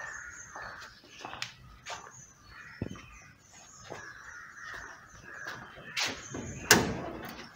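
A car bonnet being unlatched by hand: light clicks, then a sharp metallic knock about six and a half seconds in. Faint bird calls sound in the background.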